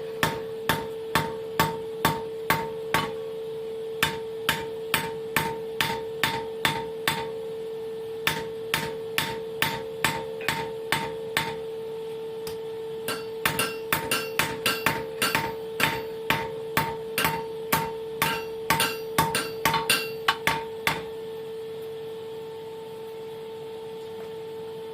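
Hand hammer striking hot high-carbon steel on an anvil: a long run of ringing blows, about two to three a second, with a few short pauses, stopping about 21 seconds in. A steady hum runs underneath throughout.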